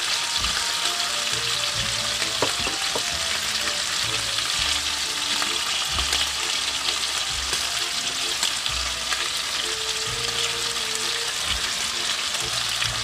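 Beef chuck roast searing in a hot frying pan, with a steady sizzle of fat and meat juices.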